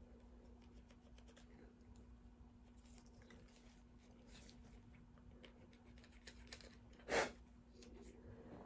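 Faint, quick scratching and ticking of a small cleaning brush scrubbing the polymer frame of a Glock 19 pistol, with one short, louder rustle about seven seconds in.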